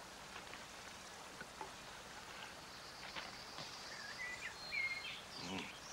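Faint outdoor ambience with light rustling and scattered small clicks as a tiger cub is handled among logs. Near the end come a few short, wavering high calls.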